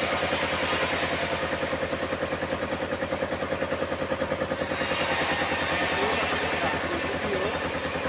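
Engine-driven sawmill running steadily, its motor giving a fast, even pulsing beat.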